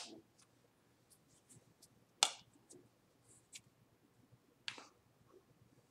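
Soft taps, brushes and clicks of a person's hands against each other and their clothing while signing, three louder brushes about two seconds apart with faint clicks between.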